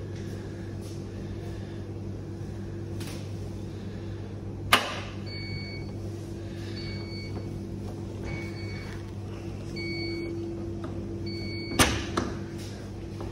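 Electrolux W4250S commercial washer signalling the end of its cycle: a sharp click, then five short beeps about a second and a half apart over a steady machine hum. Near the end a loud clunk comes as the door handle is worked to open the door.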